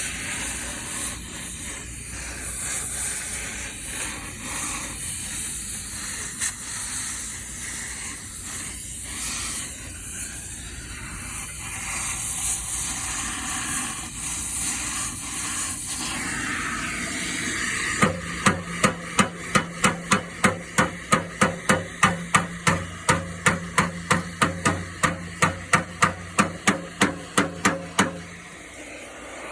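A hammer beating steel plate, about three blows a second with a ringing metallic tone, for roughly ten seconds in the second half. This is sheet steel being shaped as reinforcement for an old Vespa's rust-eaten floor step. Before the hammering there is an uneven hissing noise.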